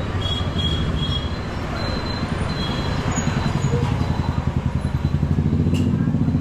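A motor vehicle's engine running close by with a low, pulsing throb, which gets louder in the second half.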